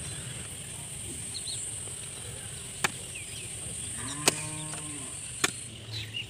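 A cow moos once, a steady call a little under a second long, about four seconds in. Three sharp wooden knocks from thin planks being handled are spread through the rest.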